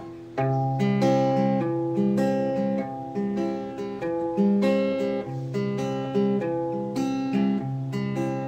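Acoustic guitar played slowly as the intro to an improvised song: a new chord struck about every half second to a second, each left ringing, with the chords changing as it goes.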